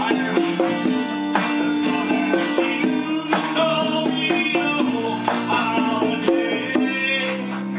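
Acoustic guitar song playing back from a computer's speakers, with congas played by hand along with it, the sharp drum slaps falling on the beat.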